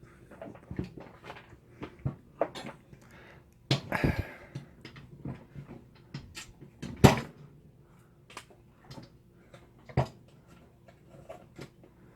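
Handling noise on a workbench: scattered clicks, taps and knocks of small objects being picked up and set down, with a rustling clatter about four seconds in and two sharper knocks about seven and ten seconds in.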